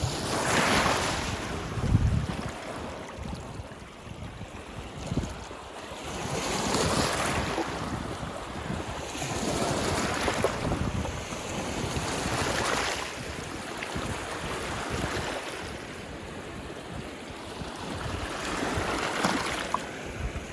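Lake waves washing onto the shore, surging and receding every few seconds, with wind buffeting the microphone as a low rumble.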